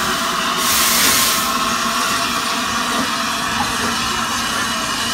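Steam locomotive and its coaches passing close by, running steadily with steam hissing, and a louder rush of hiss about a second in.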